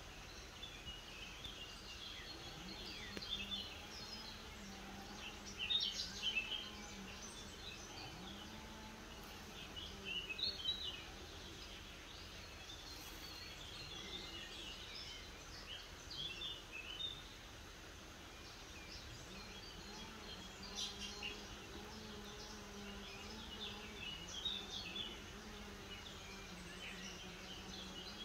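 Outdoor ambience: birds chirping in short, scattered calls, a few louder bursts among them, over the low wavering drone of a flying insect buzzing. The slug's feeding itself is not heard.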